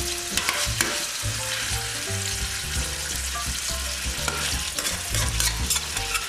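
Oil sizzling steadily in a stainless steel frying pan around two tenderloins frying with onion and garlic, while a metal spoon scrapes and clinks against the pan, basting the onion and garlic over the meat. A few sharp clinks of the spoon come near the start and again about five to six seconds in.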